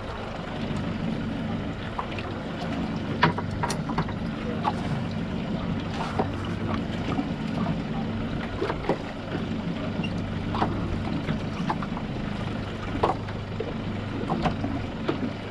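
A boat's engine idling with a steady low hum under wind and water noise, with scattered sharp clicks and knocks.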